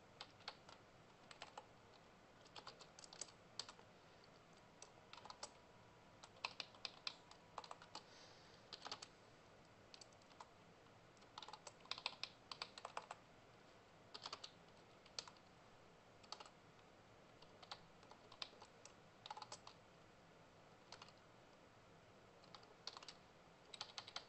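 Typing on a computer keyboard: short, irregular bursts of keystrokes with pauses between them.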